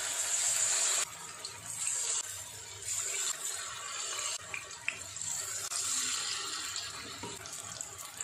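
Mushroom and cabbage batter deep-frying in hot oil in a steel pan: a steady, crackling sizzle with lively bubbling. It is loudest in the first second, then settles a little lower and uneven.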